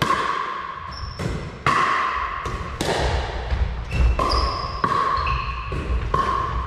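Pickleball rally: a run of about nine sharp, hollow knocks of paddles hitting the plastic ball and the ball bouncing on a wooden floor, echoing in the hall, with a few short high squeaks of shoes on the floor.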